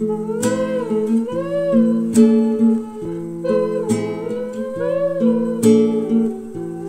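Background music: acoustic guitar strumming under a hummed melody line.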